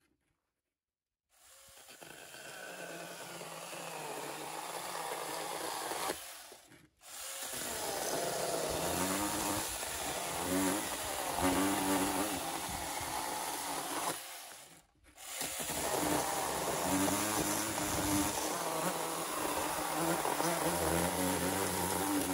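A 21-volt NaTiddy 6-inch brushless cordless mini chainsaw cutting through a two-by-four board. It starts about a second in and runs in three spells with two brief stops, and its motor pitch wavers as the chain bites into the wood.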